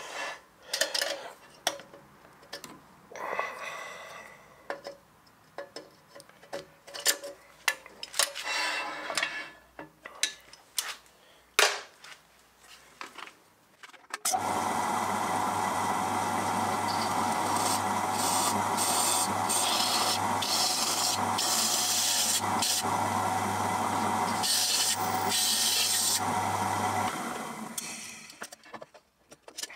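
Pillar drill running and drilling through a copper boiler barrel and its butt strip: the motor starts abruptly about halfway in, runs steadily with a low hum under the cutting noise, then spins down near the end. Before it, light clicks and rubbing as Cleco clamps and their pliers are handled.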